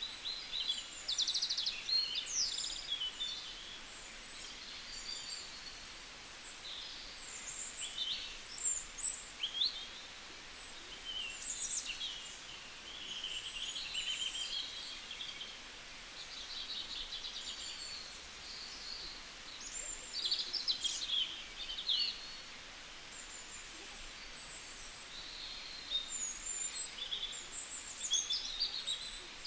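Several birds chirping and calling, many short high chirps and trills coming and going, over a steady hiss.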